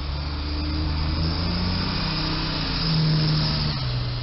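Military cargo truck's diesel engine pulling up toward the bridge, its note climbing in steps and loudest about three seconds in, then dropping suddenly near the end.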